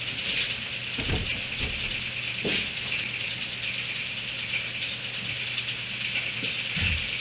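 A few dull knocks and rattles as a donkey feeds at a metal hay feeder, over a steady high hiss.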